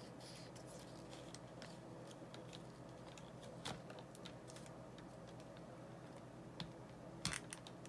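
Faint scattered clicks and taps of a Hot Toys 1/4 scale Batman figure being handled as its hand is worked off the wrist, with a few sharper clicks near the end, over a low steady hum.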